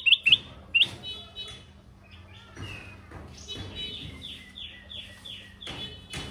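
Kutilang emas bulbul singing: a few sharp chirps, then a run of about five quick falling whistled notes in the second half, with scattered clicks.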